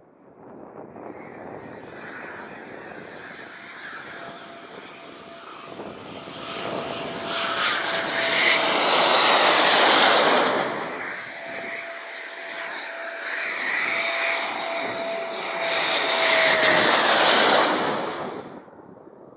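Two Eurofighter Typhoon jets on landing approach passing low overhead one after the other, their twin turbofans building to a loud peak as each goes over, the first about ten seconds in and the second near the end. A steady engine whine runs under the noise and drops in pitch as each jet passes.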